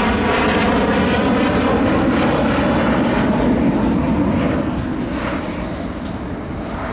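Fighter jet's engines roaring loudly as it passes, the noise fading away over the last couple of seconds.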